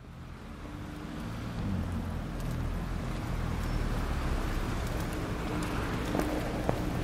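Outdoor ambience fading in, dominated by a steady low engine hum, with a few sharp ticks in the second half.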